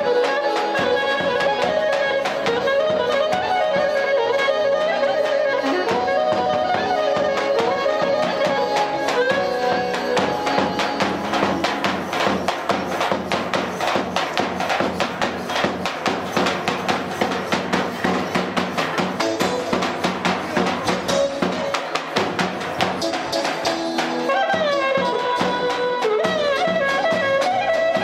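Traditional Albanian folk dance music: a clarinet plays an ornamented melody over a large double-headed drum beating a steady rhythm, with the drum strikes most prominent in the middle stretch.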